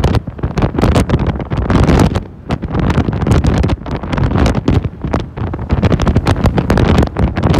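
Loud, gusty wind buffeting a phone's microphone on the open top deck of a moving tour bus, with vehicle noise underneath.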